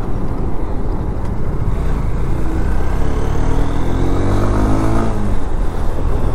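Motorcycle riding, with wind and road noise rushing on the microphone. From about two and a half seconds in, an engine note rises steadily for a few seconds as it accelerates, then fades.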